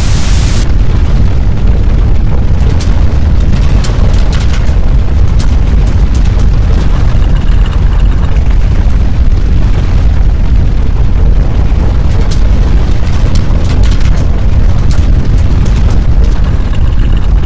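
Loud, overloaded low rumble of earthquake shaking, with scattered crackles and clicks throughout. A burst of static hiss cuts off just after the start.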